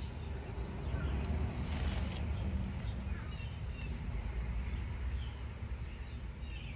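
Small birds chirping intermittently outdoors over a steady low rumble, with a brief rustle about two seconds in as the garment is handled.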